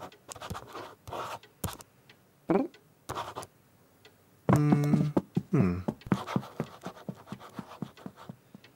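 Cartoon foley of a pen scratching on paper in quick, irregular strokes as someone colours in a sketchbook. Around the middle come a couple of brief voice sounds, one held and one falling in pitch.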